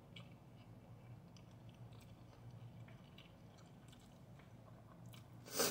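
A person chewing a mouthful of fried rice with the mouth closed: faint, soft, irregular mouth clicks and smacks over a low steady hum. Near the end comes one short, loud burst of noise.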